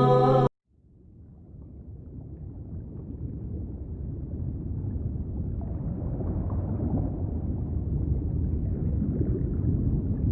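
Chanted music cuts off suddenly about half a second in. A low rumbling noise then fades in and grows steadily louder.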